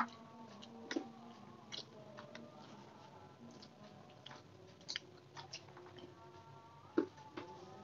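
Faint eating sounds: chewing, and a scattering of small sharp clicks as fingers pick at battered fried chicken and rice on a plate.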